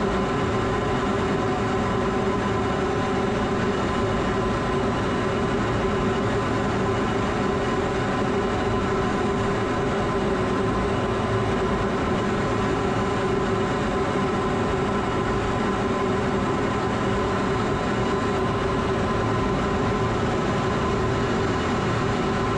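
Steady, loud cockpit drone of an F-16 fighter jet in flight: engine and rushing air heard from inside the cockpit, with a couple of steady hum tones running through it.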